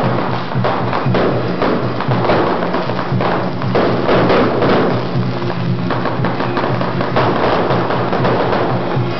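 Music with held low tones and a dense, rapid rattling percussion.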